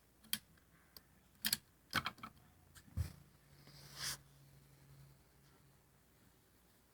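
Clicks and knocks from handling an old vacuum cleaner's handle as it is released and lowered: several short sharp clicks over the first few seconds, then a brief faint hum.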